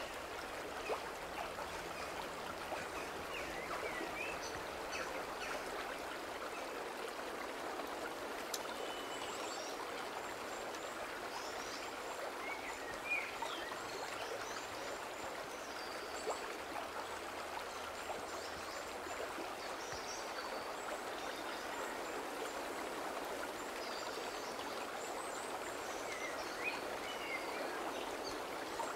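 Forest stream rushing over boulders in small cascades: a steady, even rush of water.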